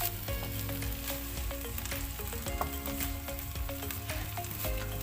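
Vegetable bolognese base sizzling in a frying pan, with a spoon stirring through it and clicking against the pan now and then.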